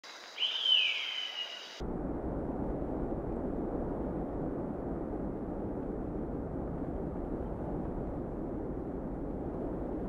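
A single bird call in the first second or two, a quick note that rises and then falls in pitch. It cuts off suddenly into a steady, low rushing noise.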